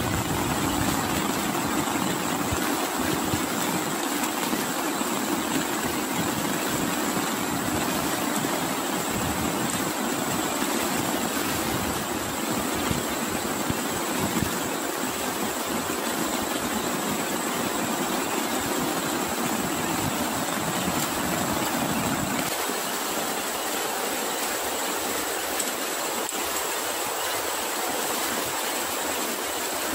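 Steady rushing noise of heavy rain and runoff water flowing over flooded ground, with a thin, steady high-pitched tone above it.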